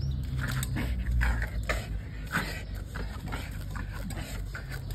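American bulldog leaping and tugging at a knotted cloth toy hanging on a rope: paws scuffling on dirt, with irregular scraping and biting noises. A low rumble sounds in the first second and a half.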